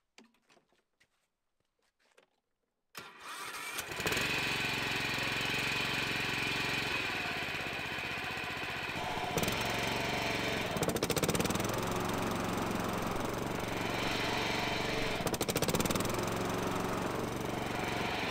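Honda HRX537 walk-behind lawn mower engine starting about three seconds in, then running steadily with the blades not engaged. Short spells of rapid rattling come through twice, about ten and fifteen seconds in: the bad running noise that the owner suspects comes from the blade clutch or a bearing.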